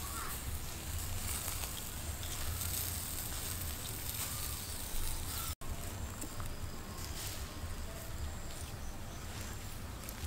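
Steady hiss of a whole chicken roasting on a spit over glowing wood embers, its juices sizzling on the coals, over a low outdoor rumble. The sound drops out for an instant about halfway through.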